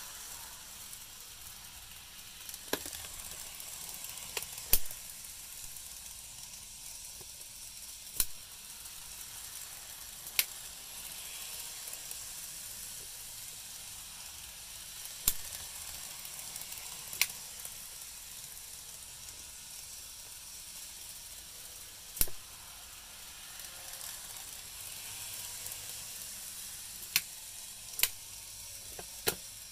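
N-gauge model trains running on the track layout: a steady high hiss with sharp clicks about ten times at uneven intervals.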